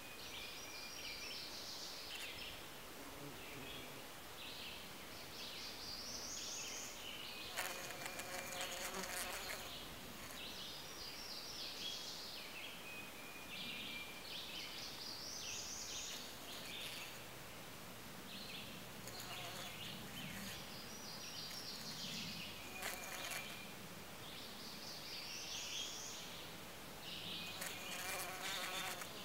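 A bee buzzing in several short bursts, the longest about two seconds, while it is trapped inside the pouch of a Kentucky lady's slipper orchid (Cypripedium kentuckiense), bumping against the pouch walls as it looks for the way out.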